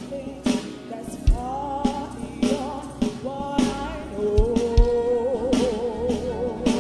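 Live gospel band playing with drums and bass under a singer; from about four seconds in a long note is held with wide vibrato.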